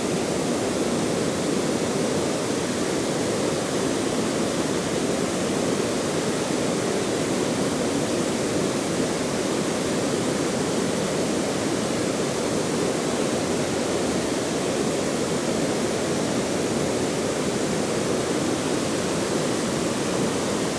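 Steady rush of flowing water from a stream, an even, unbroken noise that doesn't change.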